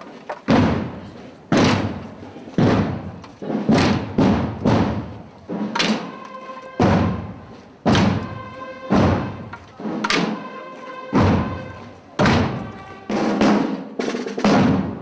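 A procession band's drums beat a slow march: a heavy stroke about once a second with lighter strokes between. Around six seconds in, a long held instrumental note sounds over the drums.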